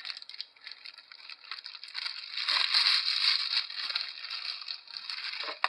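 Clear plastic packaging bag crinkling and rustling as a CPU cooler's pump and radiator are pulled out of it, loudest about two to four seconds in.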